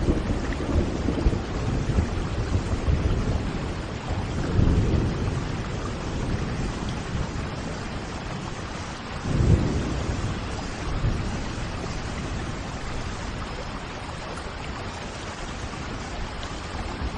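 Steady rain with low rolls of thunder: several rumbles in the first half, the loudest about halfway through, then only the even hiss of rain.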